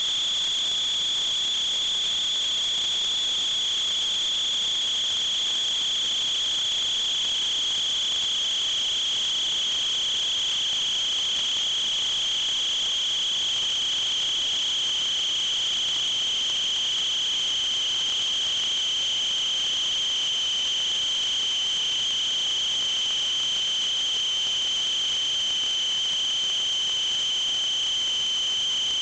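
Steady high-pitched electronic whine over a faint hiss, drifting very slowly lower in pitch, from the sewer inspection camera's recording system.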